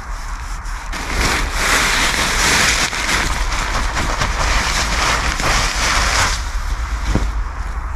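Camouflage-print waterproof fabric rustling and crinkling loudly as it is handled and gathered up, from about a second in until shortly before the end. It is followed by a single footfall.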